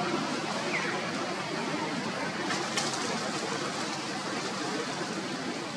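Steady outdoor background hiss, with a short faint chirp about a second in and a single light click a little before three seconds.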